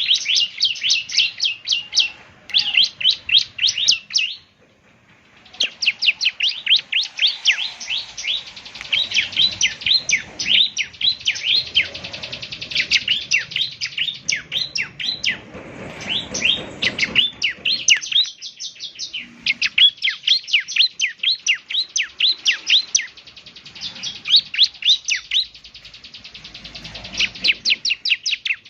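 Bar-winged prinia (ciblek semi) singing in long, fast runs of sharp, high, downward-slurred chirps, several notes a second, with one short pause about four seconds in.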